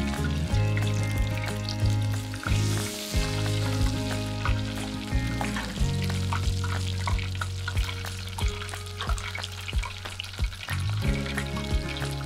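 Shrimp deep-frying in hot oil, a steady sizzle with small crackles, under background music with a steady beat.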